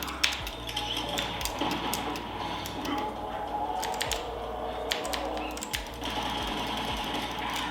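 Typing on a Tsunami MK-61 60% mechanical keyboard with Outemu switches: a fast run of key clicks with a short pause about three seconds in.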